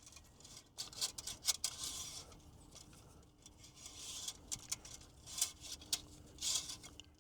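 Faint scattered clicks, scrapes and rubbing from handling the engine oil dipstick while rechecking the oil level.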